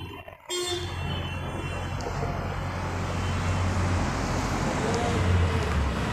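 Motor-vehicle traffic on the road: a steady low engine rumble with road noise, briefly dropping out about half a second in and swelling slightly near the end as a vehicle passes.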